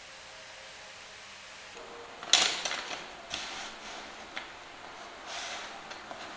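Thin pine strips clattering against each other and sliding on a workbench as a hand gathers them into a bundle. A sharp clatter about two seconds in is followed by lighter rattles and a click.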